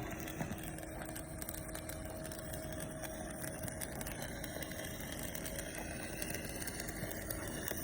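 Stick (arc) welding: a steady, even crackle of the arc over the welding machine's constant hum.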